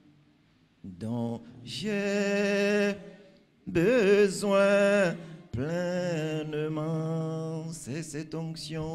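A man singing a slow worship song in three long, drawn-out phrases with short pauses between them.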